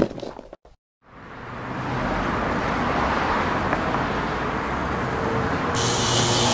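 Music cuts off at the start and, after a moment of silence, a steady rushing noise fades in and holds, like a traffic or crowd ambience bed. Near the end a harsher hissing layer switches on suddenly over it.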